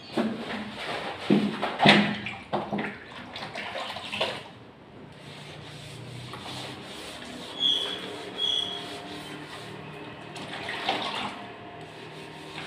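Water splashing in a bucket as a sponge is dipped, then the wet sponge rubbing over the paper backing of stripped wallpaper to soak it so it can be peeled off. Two short high squeaks sound about eight seconds in.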